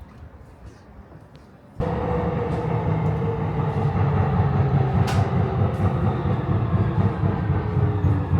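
A train running with a steady, loud rumble and hum. It starts abruptly about two seconds in, after a quiet stretch.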